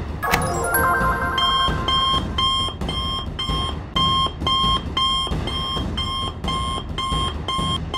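Cartoon smartwatch sounding an electronic alert: a short electronic chime, then a rapid, evenly repeating beep at about three beeps a second, the watch's distress call for help.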